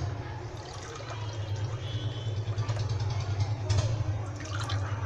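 Aam panna, a raw-mango drink, being poured from a jug into a glass tumbler, with a steady low hum underneath.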